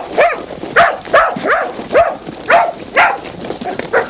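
A Croatian sheepdog barking repeatedly as it drives a flock of sheep: short barks in quick succession, about two a second.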